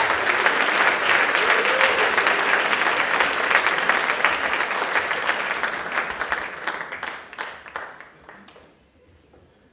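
Audience applauding, loud at first and dying away about seven or eight seconds in.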